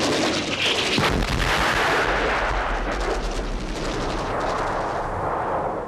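Battle sound effects: rapid gunfire crackling over a deep, continuous rumble of artillery.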